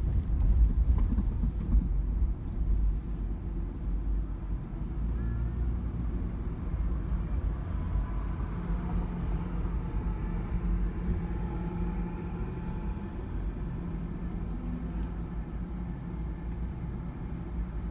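Car driving slowly, heard from inside the cabin: a steady low rumble of engine and road noise, a little louder and bumpier in the first couple of seconds.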